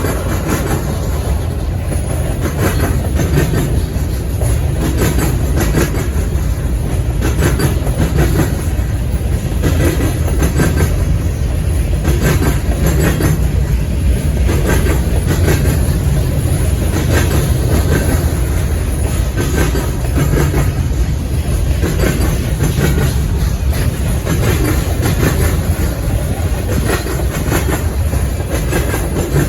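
Freight train cars rolling past at speed: a steady heavy rumble with continual clicks and clacks of steel wheels over the rail joints.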